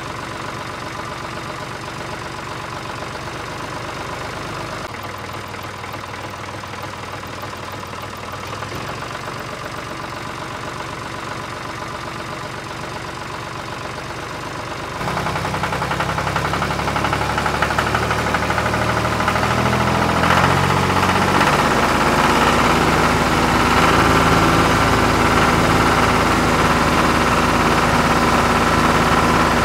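Engine sound idling with a knocking beat. It jumps louder about halfway through and stays there.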